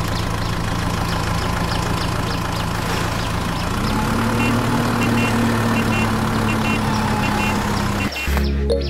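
Tractor engine running steadily, its pitch rising a little about four seconds in; it cuts off suddenly near the end.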